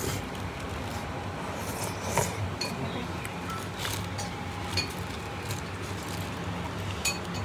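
Scattered light clinks of tableware on bowls and plates over a steady low hum, with a sharper clink about two seconds in.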